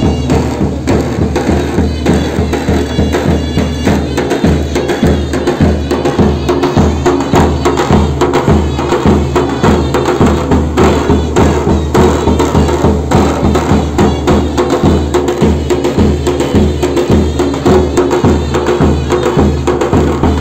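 Turkish davul-zurna music: a large double-headed davul bass drum beaten in a steady rhythm, under the loud, piercing melody of a zurna double-reed pipe.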